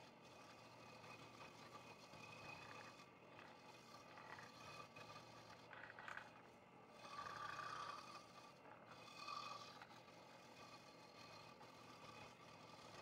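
Very faint scroll saw running, its blade cutting through a piece of log offcut; the cutting sound swells a little past halfway through.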